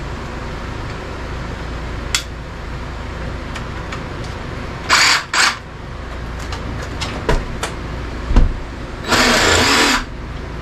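A cordless power saw switched on in short bursts: two quick runs about five seconds in and a longer run of about a second near the end, with clicks and a knock between them, over a steady hum.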